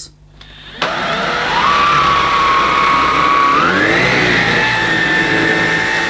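Bosch Unlimited 18-volt cordless stick vacuum switched on about a second in, its motor whining up to speed and running steadily on the carpet. A little before four seconds in the whine steps up to a higher, steady pitch.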